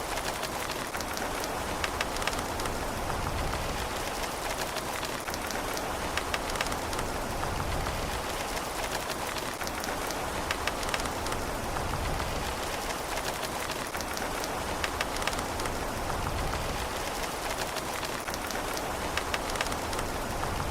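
Steady rain falling, an even hiss with frequent sharp clicks of single drops striking a surface.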